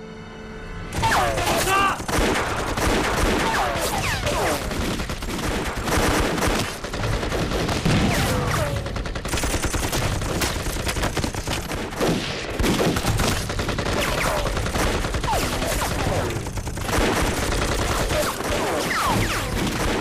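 Heavy gunfire from many guns in a battle: rapid, overlapping shots that break out about a second in and keep on without let-up, apart from a brief lull near the end.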